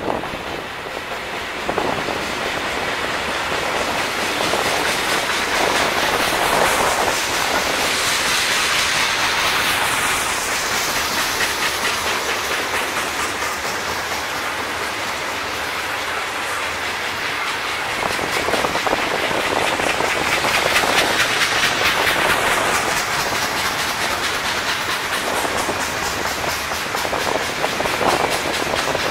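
CN mixed freight train passing close by: the two GE diesel locomotives go by, then tank cars and covered hoppers roll past with steady wheel and rail noise, wheels clacking over the rail joints.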